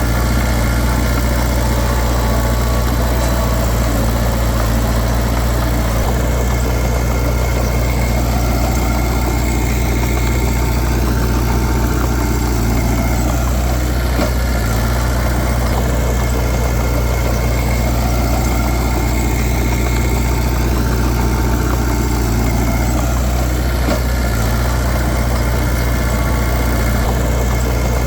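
Heavy diesel engine of a Komatsu D31P crawler bulldozer running steadily, its tone slowly rising and falling every several seconds as it works.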